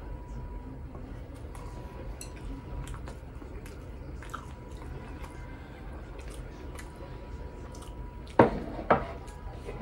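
A person chewing a mouthful of food, with small clicks of chopsticks and tableware. Near the end come two sharp knocks of dishes, about half a second apart.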